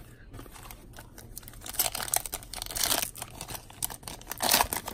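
Foil wrapper of a 2019 Upper Deck X-Files trading card pack crinkling and tearing as it is opened by hand, in bursts about two seconds in and again, loudest, near the end.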